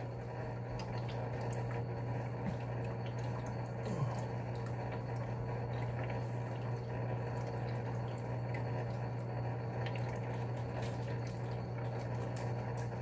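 Aquarium equipment running: a steady low hum with trickling, bubbling water. A few faint crinkles of plastic fish bags being handled.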